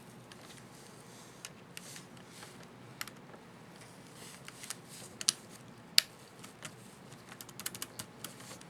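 Scattered small plastic clicks and taps from an HP ProBook 4540s laptop keyboard as its Caps Lock keycap is handled, with two sharper clicks about five and six seconds in and a quick run of lighter clicks near the end.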